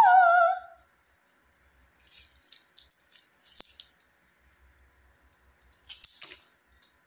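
A girl's sung voice trails off right at the start. Then comes faint crinkling and rustling as a gold glitter artificial-flower ornament is handled and pulled apart, with one sharp click about three and a half seconds in and a brief rustle near the end.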